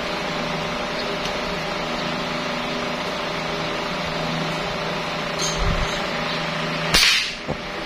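A single sharp shot from a suppressed PCP air rifle about seven seconds in. It is the loudest sound, with a short tail after it, over a steady machine hum.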